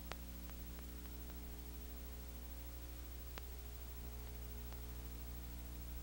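Steady electrical hum and hiss with a few faint clicks, one just after the start, another about three and a half seconds in and a fainter one near five seconds. There is no game sound: this is the noise floor of a silent film transfer.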